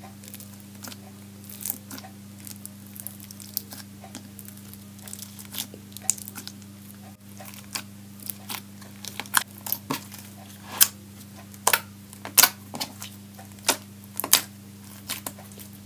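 Foam-bead slime (floam) crunching and clicking as fingers press into and knead it: scattered sharp crackles and pops, growing more frequent and louder in the second half. A steady low hum runs underneath.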